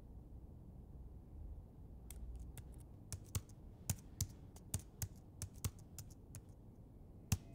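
Typing on a laptop keyboard: irregular key clicks starting about two seconds in, over a low steady hum, with one sharper keystroke near the end.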